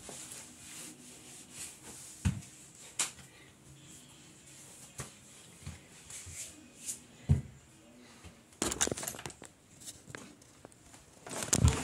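A few dull thumps of footsteps on the floor and light clicks, then rustling and handling noise close to the phone's microphone near the end.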